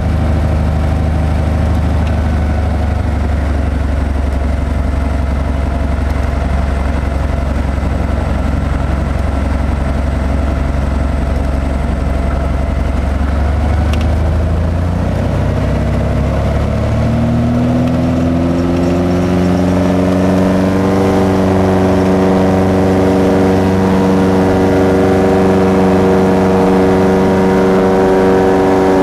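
Light aircraft's propeller engine heard from inside the cabin, a steady low drone at first. A little over halfway through the pitch rises over a few seconds as power comes up for the takeoff roll, then holds at a higher, steady note.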